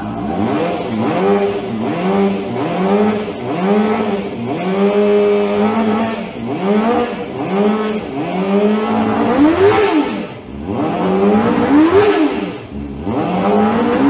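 Kove 400cc water-cooled inline-four motorcycle engine, run bare on a display stand through its exhaust, being revved in a dozen or so quick throttle blips, each rising and falling in pitch. The highest and sharpest revs come in the last few seconds.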